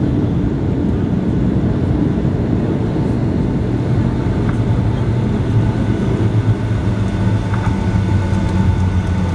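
Boeing 757-200 heard from the passenger cabin during the landing rollout: a loud, steady low rumble of the engines and the wheels on the runway as the jet slows with its spoilers up.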